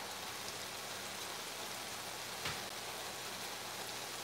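Chunks of beef for stew sizzling steadily in a frying pan as they brown, with one light knock about two and a half seconds in.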